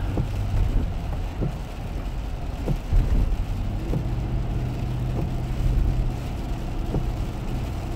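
Cabin noise of a Lexus LX 470 at highway speed on a wet road: a steady low hum from its V8 under a hiss of tyres and spray. A few faint knocks come through.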